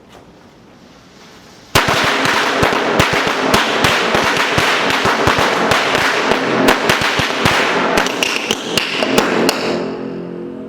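A string of firecrackers going off. It starts suddenly about two seconds in, then gives dense, rapid loud cracks and bangs for about eight seconds, thinning out and fading near the end.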